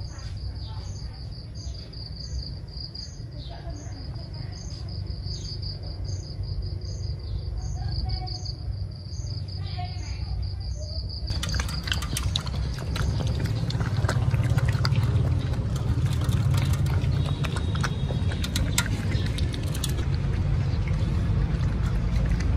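Crickets chirping in a steady rhythm over a low background rumble. About eleven seconds in this gives way to puppies eating wet food from metal bowls: lapping and chewing with many small clicks and taps against the bowls.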